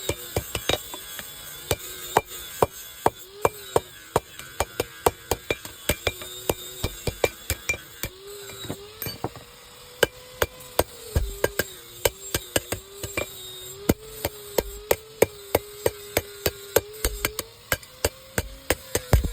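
Blacksmith's hammer striking steel repeatedly while forging a knife blade: a fast, steady run of sharp metallic blows, about three a second, with a faint wavering hum underneath.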